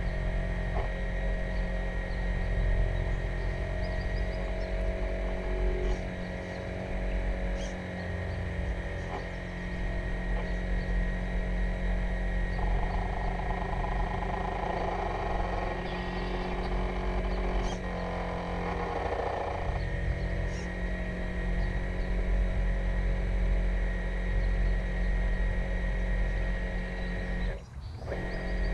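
Electric drive motor and propeller of an RC model container ship running steadily, heard through the hull as a hum of steady tones over a low rumble, with water wash; the sound drops out briefly near the end.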